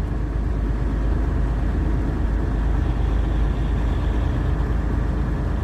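Semi truck driving on the highway, heard inside the cab: a steady low engine drone with road noise.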